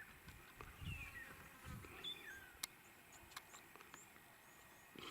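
Faint bush ambience with small birds calling: a couple of short falling whistles, then a string of quick high chirps, over a few soft clicks and low thumps.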